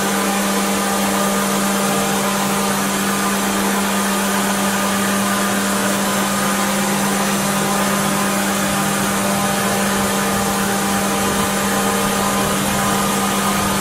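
Subaru Baja's flat-four engine idling with the A/C running, a steady hum with a constant droning tone. The system is being charged with R134a at this point.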